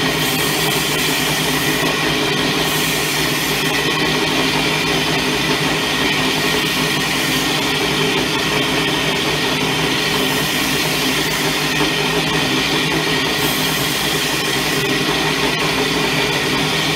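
Small benchtop belt sander running steadily, with a knife blade passed over its abrasive belt to profile the edge, adding a higher grinding hiss in two stretches, near the start and around the middle.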